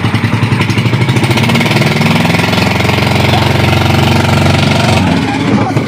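Outrigger boat's engine running loudly with a fast pulsing beat, which evens out into a steadier hum for a few seconds in the middle before pulsing again.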